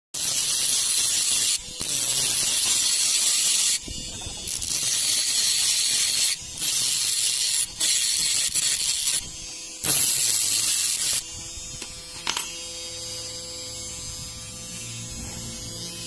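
Small 775 DC motor spinning a thin abrasive cut-off disc that grinds into a rusty metal strip in about six harsh bursts, each a second or two long, with the motor's steady whine between them. From about eleven seconds the disc spins free and only the steady motor whine remains.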